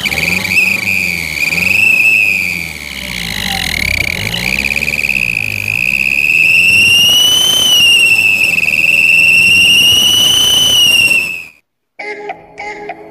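Two metal whistles on a soda can clamped over a car's exhaust tailpipe, blown by the exhaust gas while the car is driven: a loud, shrill whistle that rises and falls in pitch as the engine speeds up and slows, over the engine's low rumble, a homemade imitation of a turbo's whistle. The sound cuts off suddenly, and music starts near the end.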